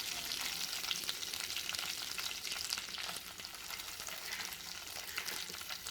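Onions just added to hot oil with tempering seeds and curry leaves in a kadai, frying with a steady sizzle and many fine crackles.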